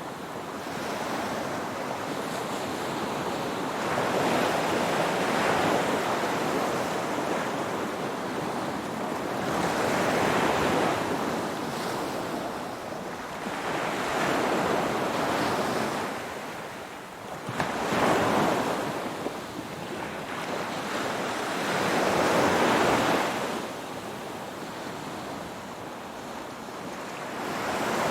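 Ocean waves breaking and washing in, swelling and easing about every five or six seconds, with a steady wash between the surges.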